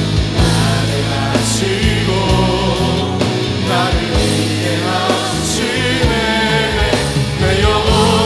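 Contemporary Christian worship music: a full band with drums plays under wavering sung lines that sound like a choir or group of singers.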